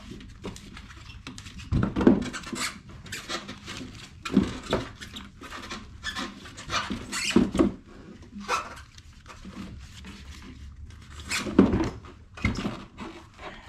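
Rubber snowmobile track being pushed and dragged onto the sled's chassis by hand: irregular scuffs, rubs and knocks of the track against the metal, with louder bangs about 2, 4.5, 7.5 and 11.7 seconds in.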